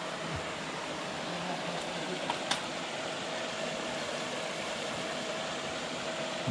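Steady hiss of water splashing from a pond fountain aerator, with a faint steady hum underneath. Two small clicks come about two and a half seconds in.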